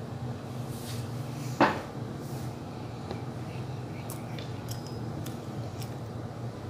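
A single sharp knock about a second and a half in, then a few faint small clicks, over a steady low hum.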